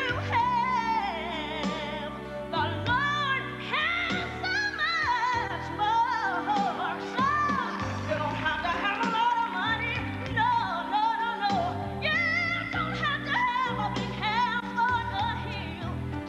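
A woman singing a soulful vocal with wide vibrato on long held notes and sliding runs, over instrumental accompaniment.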